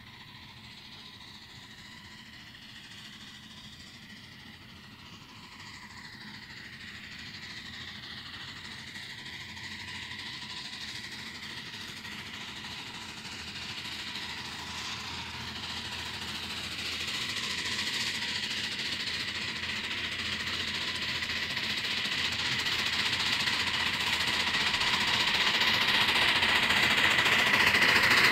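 A 1/8-scale live-steam PRR K4sa Pacific locomotive and its train of riding cars running on the track, getting steadily louder as it approaches.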